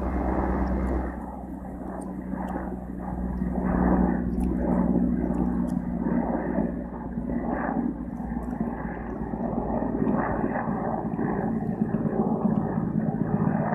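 Helicopter flying overhead: a steady low hum of engine and rotor that swells and fades slightly.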